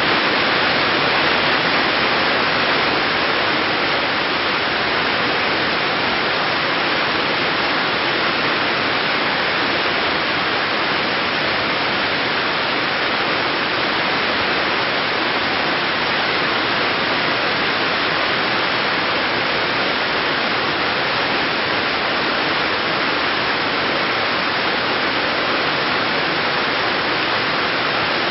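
A waterfall: a steady, loud rush of falling water.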